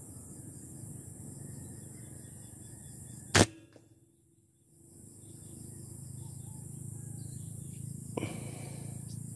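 A single sharp air-rifle shot about three seconds in, followed by a softer click near the end.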